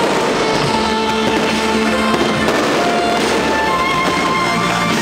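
Music with held melodic notes, together with a dense, continuous crackling of fireworks.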